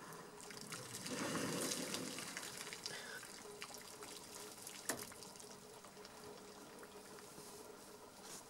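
African elephant drinking, squirting water from its trunk into its mouth: a gush of splashing water about a second in, then trickling and dripping, with a single sharp click near the middle.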